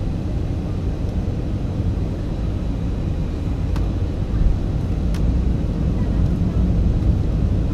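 Steady low rumble of a jet airliner's engines and rushing air, heard inside the passenger cabin during the descent to land. A couple of faint clicks come through partway in.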